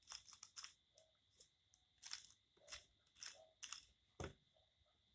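Rubik's Cube layers being turned by hand through an F2L algorithm: a quick, irregular run of about a dozen short plastic clicks and scrapes.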